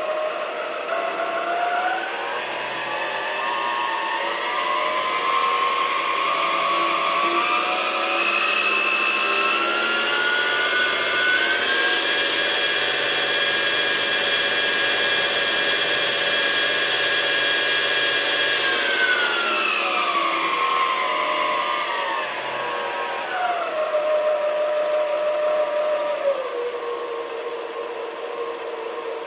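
Sieg mini lathe's variable-speed motor and spindle running with a whine that climbs in pitch in steps as the speed knob is turned up to about 2400 rpm. It holds steady at top speed for several seconds, then steps back down as it is slowed to about 700 rpm.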